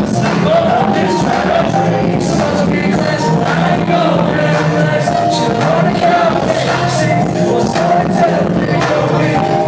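Live hip-hop music played loud through a concert PA: a DJ's beat with steady bass and a rapper's vocals over it.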